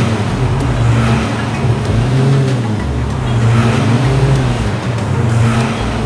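Cartoon vehicle engine sound effect, revving up and down in repeated rising-and-falling swells.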